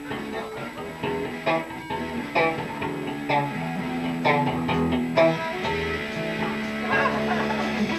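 Rock band music led by electric guitar: picked notes and short phrases over a bass guitar line.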